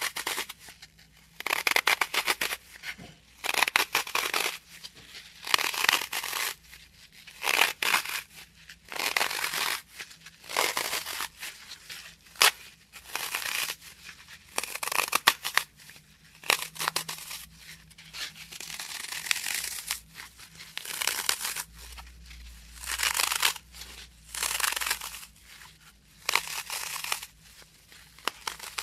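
Oasis Maxlife green floral foam crunching and crumbling as fingers press into it. The squeezes repeat as short crackly crunches, one every second or two.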